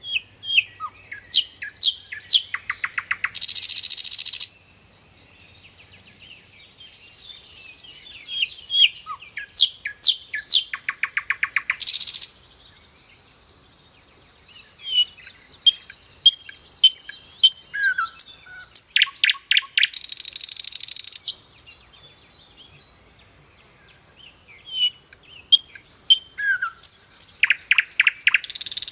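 A songbird singing, repeating the same phrase four times, about every eight seconds: a run of quick high chirps that speeds into a rapid trill and ends in a short harsh buzz.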